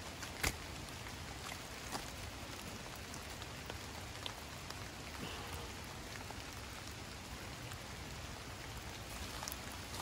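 Steady light rain falling on the woodland, with a few sharp taps, the loudest about half a second in.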